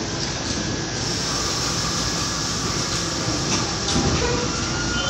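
R68A subway train starting to pull out of the station: a steady rumble with a faint whine from its traction motors.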